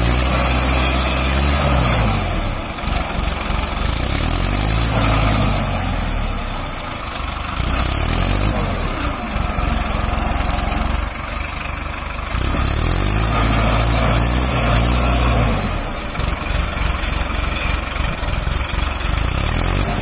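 Mahindra Arjun Ultra-1 555 DI tractor's four-cylinder diesel engine revving up and easing off again and again, about every four seconds, as the stuck tractor's rear tyres spin and churn through mud and water.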